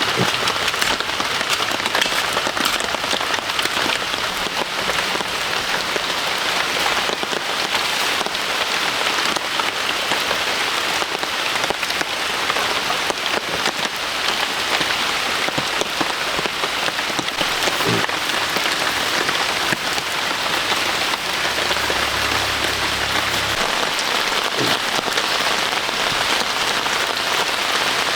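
Heavy rain falling steadily, a dense hiss of drops with many small patters close by.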